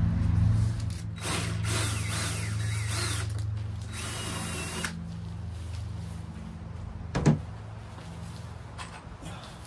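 Drill driving screws through the vinyl lattice cap into the wooden frame, running in short bursts from about a second in until about five seconds in. A sharp knock comes about seven seconds in, over a steady low hum.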